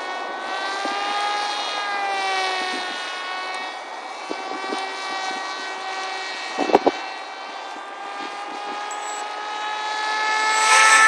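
Electric motor and propeller of an RC foam flying wing in flight, a whine that rises and falls in pitch with throttle and passes, growing louder near the end. A brief clatter of clicks comes about two-thirds of the way through.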